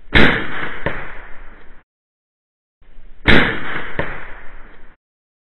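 Modified Crosman 1322 .22 pump-up air pistol fired twice, a little over three seconds apart. Each shot is a sharp crack followed by a fainter click under a second later, and each sound cuts off abruptly.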